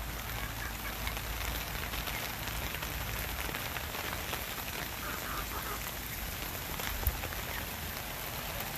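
Steady rain falling on the ground and standing water, with many small drop ticks and one sharper tap about seven seconds in.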